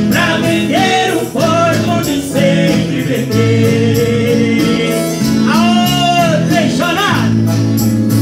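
Live forró band playing, with accordion, keyboard and acoustic guitar under a male voice singing into a microphone.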